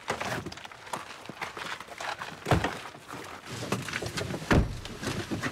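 Military packs and kit being loaded into a car's open boot and people climbing in: rustling of gear and knocks throughout, with two heavy thumps about two and a half and four and a half seconds in.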